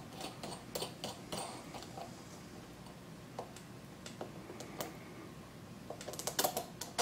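Light clicks and taps of small prop bushings being handled and test-fitted on a drone motor and propeller hub, scattered through, with a quick run of clicks about six seconds in.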